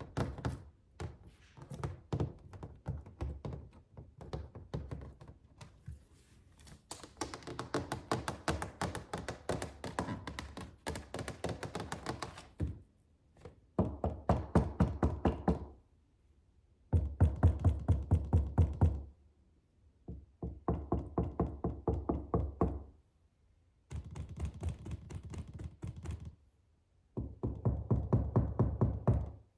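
Fingers tapping fast on a suitcase, in bursts of a few seconds with short pauses between them. Some bursts land as heavier, deeper knocks.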